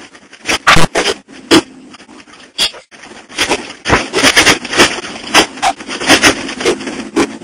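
Truck cab knocking and banging irregularly as the truck jolts over rough off-road ground, heard from inside the cab, over a low engine hum. The knocks come thickest in the second half.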